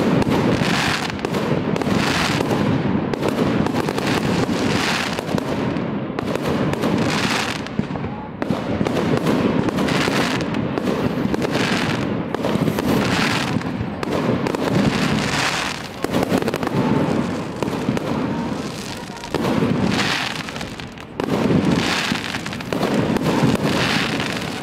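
Aerial fireworks shells bursting one after another, a near-continuous string of bangs and crackle at roughly two a second.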